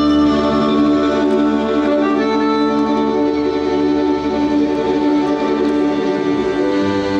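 Piano accordion with a small folk ensemble playing long held chords over a steady bass note, the opening of a Serbian folk tune; the chord and bass shift near the end.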